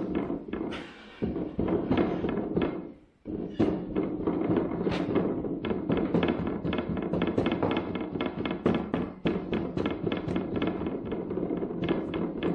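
Molding sand being rammed into a wooden flask with a hand rammer: a quick run of dull thuds, about three or four a second, packing the sand firm for a sand-cast mold.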